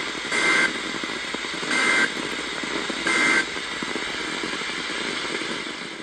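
NOAA Weather Radio broadcast over steady radio static, with three short bursts of SAME digital data tones about a second and a half apart. This is the Emergency Alert System end-of-message code that closes the tornado warning.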